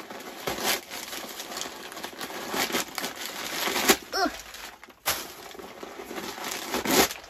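Crumpled white paper packing stuffing crinkling and rustling as it is pulled out of a mini backpack and handled, with irregular sharp crackles throughout.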